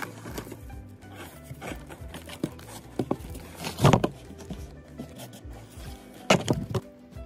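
Background music, with rubbing and scraping as a hand scoops reptile sand out of its plastic bag. The handling noises grow loud for a moment about four seconds in and again near the end.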